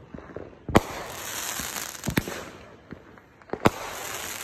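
Consumer aerial fireworks bursting overhead: several sharp bangs, the loudest about a second in and a close pair near two seconds, with a hissing crackle of sparks between them.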